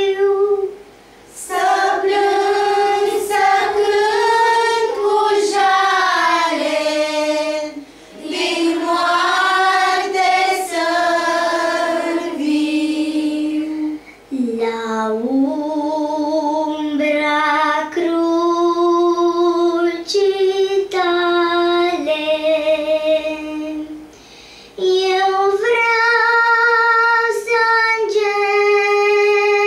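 A young girl singing a slow Romanian hymn, in long sung phrases with short pauses for breath between the lines.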